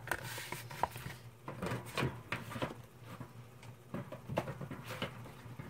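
Faint, scattered light taps and rustles, like paper and cardstock being handled and set down on a cutting mat.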